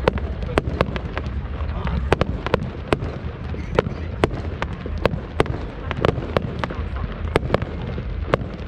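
Fireworks going off in a display: an irregular run of sharp bangs and cracks, about two a second, over a steady low rumble.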